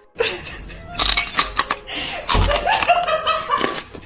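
People laughing, with a few sharp knocks or slaps about a second in.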